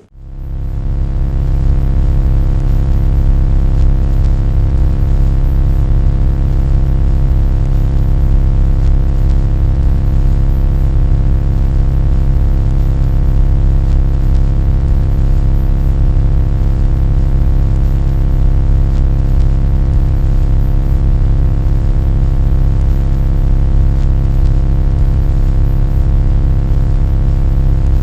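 A loud, steady low drone made of many fixed tones stacked over a heavy deep hum. It swells up within the first second or two, then holds without change.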